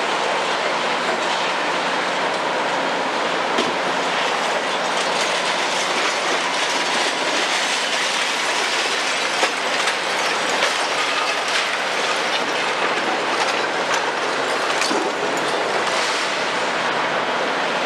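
Long-reach CAT 352F demolition excavator breaking up a concrete building: a steady mass of engine and crunching noise with many sharp cracks and clatters of breaking concrete and falling rubble, which come more often in the second half.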